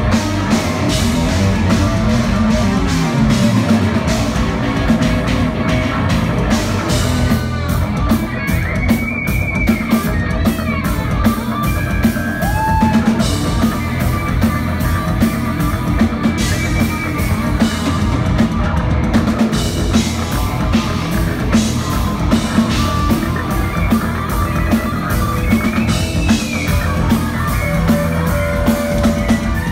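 Progressive metal band playing live: double-neck electric guitar taking the lead over bass and drums, with fast runs and several bent notes gliding in pitch.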